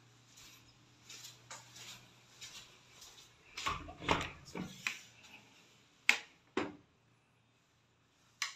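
A wooden interior door being handled and opened: a knocking rattle about three and a half seconds in, then two sharp clicks of the latch about half a second apart, and one more click near the end, with soft footsteps before.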